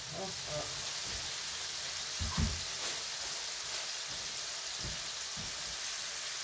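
Four hamburger patties sizzling in a frying pan: a steady frying hiss, with one soft low bump about two and a half seconds in.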